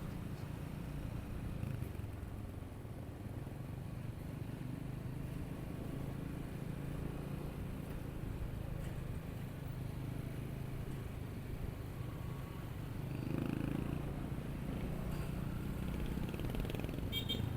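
Motorcycle engine running steadily with a low, even drone, heard from the rider's own camera; it grows a little louder about two-thirds of the way through. A few short high tones sound just before the end.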